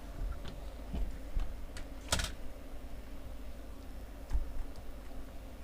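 Scattered light clicks and taps of small parts and tools being handled on a repair bench, one sharper click about two seconds in, over a low steady hum.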